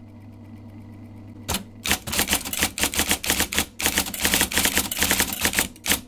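IBM Selectric electric typewriter running, its motor giving a steady hum. About a second and a half in comes a single strike, then a fast run of typing strikes, several a second, with a short break in the middle.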